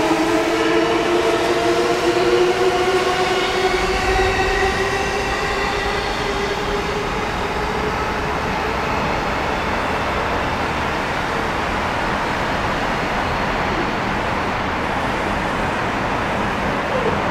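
JR E233-1000 series electric train pulling away, its Mitsubishi IGBT-VVVF inverter whine rising in pitch as it accelerates. After about six seconds the whine fades into steady running noise from the wheels and motors.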